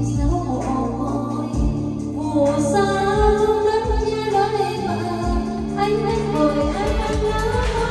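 A song playing, with a woman singing over sustained backing and low drum beats.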